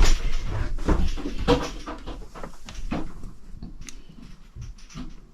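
Knocks and clunks of someone moving about inside a sailboat cabin and handling a locker door, busiest in the first three seconds, then thinning to a few faint clicks.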